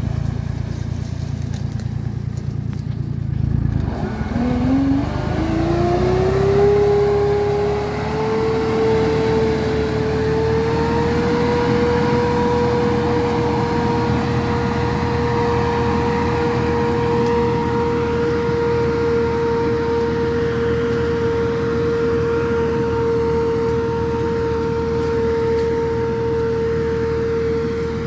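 Tractor engine running, then about four seconds in the PTO-driven fan of a trailed orchard sprayer spins up. Its whine rises in pitch for several seconds, then holds steady over the engine as the sprayer works.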